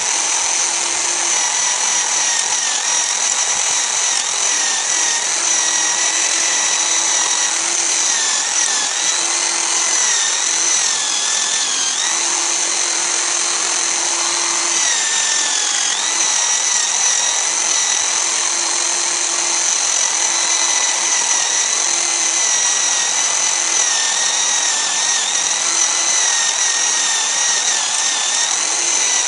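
Power-tool motor driving a homemade wood lathe, a steady high whine with a rubbing hiss as sandpaper is held to the spinning wood. Its pitch dips slightly a few times as the work loads the motor.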